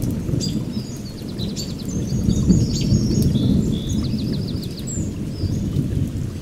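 Milk bubbling as it cooks in a pot on the stove: a steady low rumble. Faint high chirps and trills of birds sound above it.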